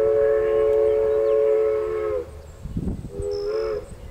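Steam locomotive's chime whistle, a 1882 Dubs & Company 4-4-0: a long multi-note blast that cuts off about two seconds in, then a short blast about a second later, part of a grade-crossing whistle signal. Low rumble underneath.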